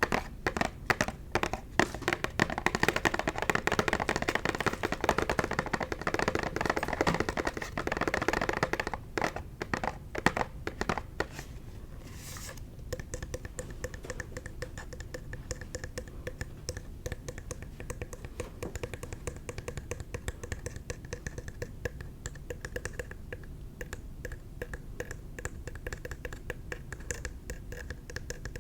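Rapid light tapping on a face wash container, heavier and louder for about the first eleven seconds, then softer and quicker. There is a short scrape about twelve seconds in.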